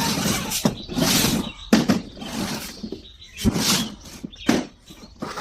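Toy RC car's plastic body and wheels scraping and knocking in irregular noisy bursts, with sharp clicks, as the car tumbles and rolls over.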